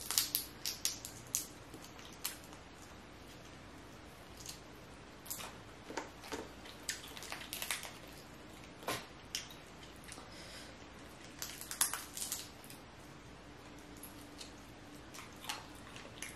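Boiled crawfish shells crackling and snapping as they are peeled apart by hand, with wet squishing of the sauce-coated meat. Irregular sharp clicks come in clusters, the densest at the start and again around the middle.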